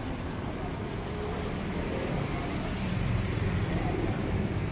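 Steady low background rumble of road traffic.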